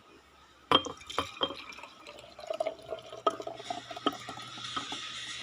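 A few sharp clinks of glassware, then blended oregano-and-water liquid poured steadily into a glass from about three and a half seconds in.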